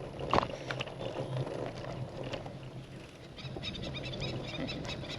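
Birds calling in a fast run of short, high chirps, about five or six a second, starting about three and a half seconds in. A single short knock sounds about half a second in.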